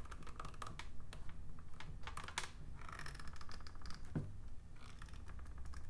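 Small plastic handling noises: light clicks and rustles as clear vinyl tubing is fed through a sprayer's plastic nozzle nut. There is a sharper click about two and a half seconds in and a dull knock a little after four seconds.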